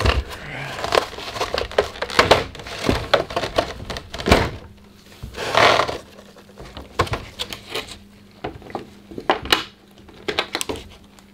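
Thin clear plastic tray insert of a card collection box being pulled loose and handled: a run of sharp crackles, clicks and light knocks, with a longer crinkling rustle about five or six seconds in.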